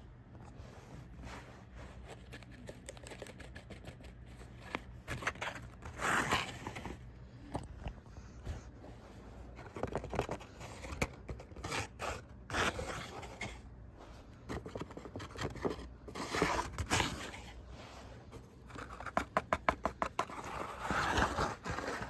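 Handmade paper bus models being pushed and scraped across a fabric surface and handled, with papery rustling and scraping in irregular spells and a quick run of sharp taps near the end.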